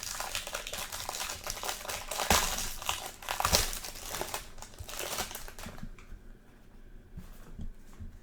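Plastic wrapper of a 2020 Donruss Football retail trading card pack being torn and crinkled open, with loud crackles a couple of seconds in and again about three and a half seconds in. The crinkling stops about six seconds in, leaving faint ticks of cards being handled.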